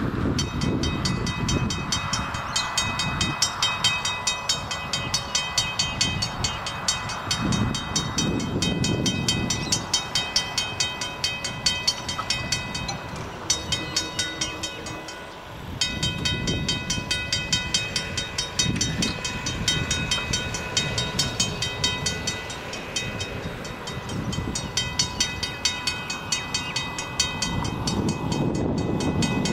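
Western Cullen Hayes mechanical level-crossing bell ringing rapidly and steadily, the warning that the crossing has activated for an approaching train, with a short break a little before halfway. Gusty wind rumble on the microphone underneath.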